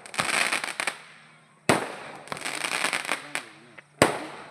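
Firecrackers going off: a rapid string of cracks in the first second, then single loud bangs about two seconds apart, each trailing off.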